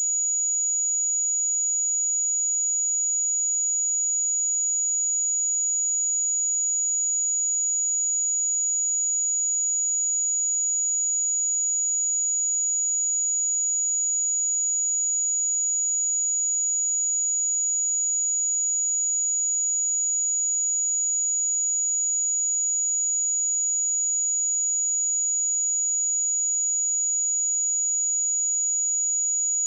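A steady, high-pitched pure sine-wave test tone at 6833 Hz, held unchanged.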